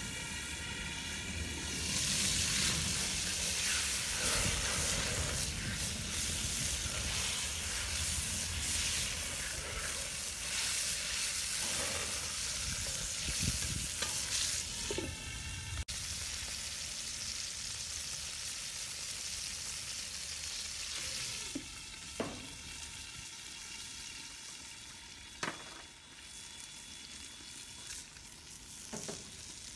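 Spicy sauce with tofu and duck blood sizzling and bubbling in a cast-iron wok, a steady hiss that drops in level partway through. A few short clicks come in the second half.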